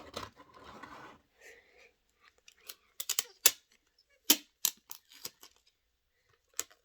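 Handling noise from crafting with small toy pieces: a short rustle, then a run of sharp clicks and taps.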